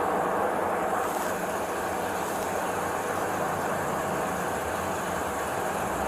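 Steady vehicle noise, an even drone with no clear beat or pitch.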